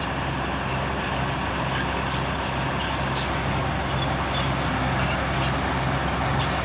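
Bulldozer's diesel engine running steadily, a low drone that pulses about two to three times a second.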